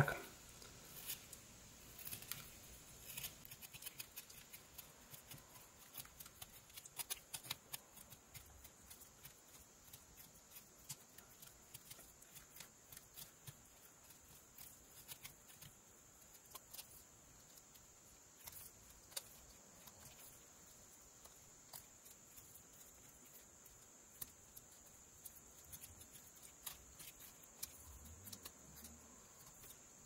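Rough Rider pocket knife making small texture cuts in eastern white pine: faint, irregular snicks and clicks, often several a second.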